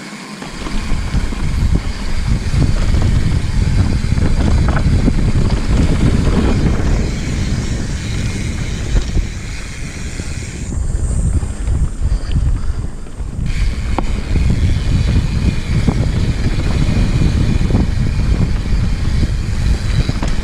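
Santa Cruz Megatower full-suspension mountain bike descending a dirt trail at speed: a steady rumble of tyres over the ground with many small rattles from the bike, and wind buffeting the microphone.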